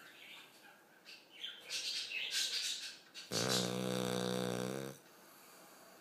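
Small birds chirping for about two seconds, then a sleeping Cavalier King Charles spaniel gives one long, even-pitched snore lasting about a second and a half.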